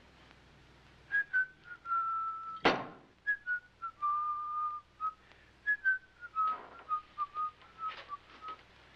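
A person whistling a slow song melody in three falling phrases. A single sharp knock sounds about a third of the way in.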